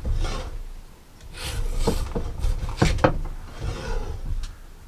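Scraping out the rail groove of a chainsaw bar to clean it, with several rasping strokes of a tool along the metal and a few sharp clicks.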